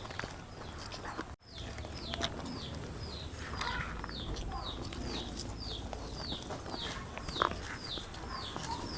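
A bird calling over and over, a short high note that falls in pitch, repeated about twice a second, with a low steady rumble underneath.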